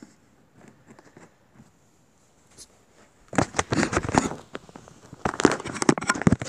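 Close handling noise: rustling and scraping right at the recording phone's microphone, in two loud bursts about three seconds in and again about five seconds in.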